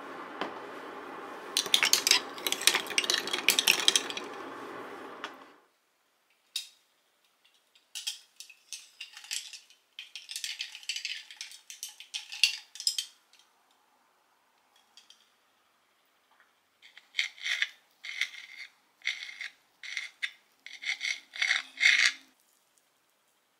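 A spoon stirring ice in a glass, rattling and clinking for a couple of seconds over a steady hum that stops about five seconds in. Then cutlery on a ceramic plate: scattered clinks, and near the end a knife and fork cutting French toast, striking the plate about once a second.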